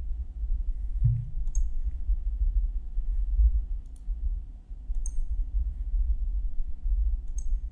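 Computer mouse clicks: about five single clicks spaced irregularly a second or more apart, over a steady low hum.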